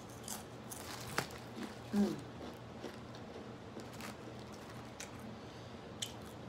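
Close-up eating sounds: a person chewing and licking food off her fingers, with a few short sharp smacks and clicks and a brief hum about two seconds in.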